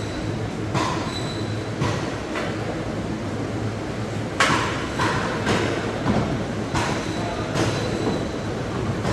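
A knife or cleaver striking a cutting board in a series of sharp, irregular knocks, roughly one a second, as stingray is cut up, over a steady low background hum.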